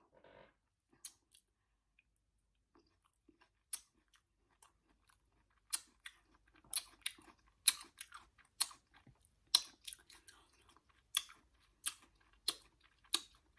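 A person chewing Kool-Aid-coated fruit with the mouth close to the microphone: wet smacking clicks at an uneven pace. They start sparsely and come about every half second to a second in the second half.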